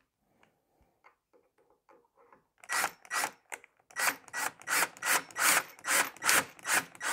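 Cordless drill-driver driving a wood screw straight into the edge of 10 mm plywood without a pilot hole. After a few faint clicks, the screw grinds in with loud rasping pulses about three a second over a steady motor whine, splitting the plywood.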